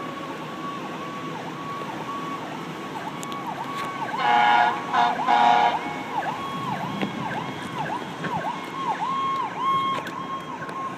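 Emergency vehicle sirens sounding in quick, repeated dipping sweeps, with two loud horn blasts about four and five seconds in.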